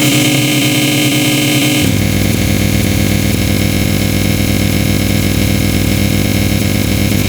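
Dense synthesized MIDI ringtone music: a thick, loud, sustained droning chord cluster. A deep bass layer comes in about two seconds in.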